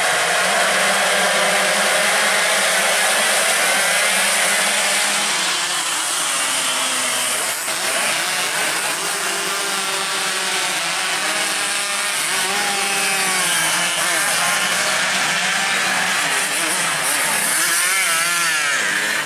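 A pack of Yamaha RX-King two-stroke motorcycles racing away from the start, many engines buzzing and revving together at once. Individual bikes' pitch rises and falls as they accelerate, shift and pass, with quick up-and-down sweeps near the end.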